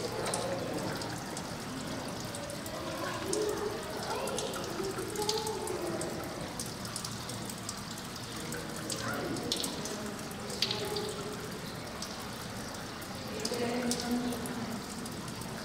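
Running water, with indistinct voices in the background and scattered small clicks.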